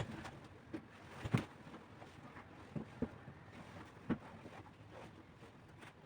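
Handling noise: a few soft knocks and bumps, scattered singly, over a faint steady hiss.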